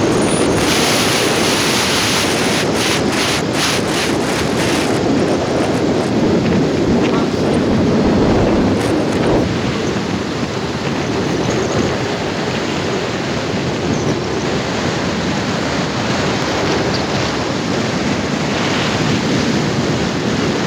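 Wind rushing over the microphone of a moving motorcycle, a steady loud roar of rushing air with road noise underneath, a little harsher with a few crackling gusts in the first few seconds.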